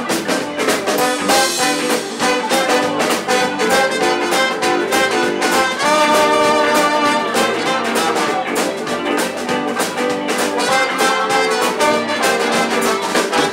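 Live swing rock'n'roll band playing an instrumental passage with electric guitar, electric bass, drums and Hammond organ over a steady beat.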